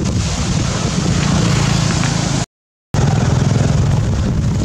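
Loud, steady outdoor rumble with a rough low drone, most like wind buffeting the microphone and road noise. It drops out completely for a moment about two and a half seconds in, then comes back the same.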